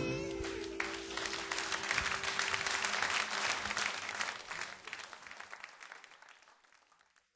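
Live audience applauding as a song ends, over the last held chord ringing out; the clapping fades away near the end.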